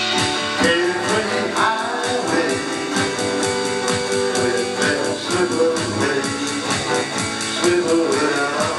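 Live band music: guitar strummed and played over an electric drum kit keeping a steady beat, with no singing.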